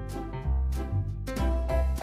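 Light, bouncy background music with a regular bass beat and short pitched notes.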